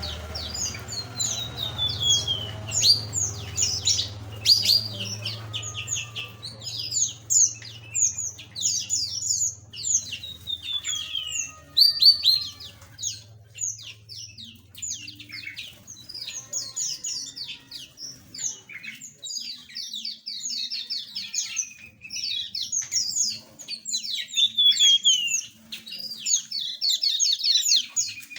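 A flock of small aviary birds chirping constantly, with many overlapping short calls and now and then a quick falling trill. A low hum underneath stops about halfway through.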